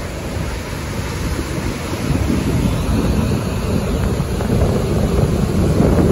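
Lake Huron surf breaking on the beach at high tide, with wind buffeting the microphone as a low rumble that grows louder about two seconds in.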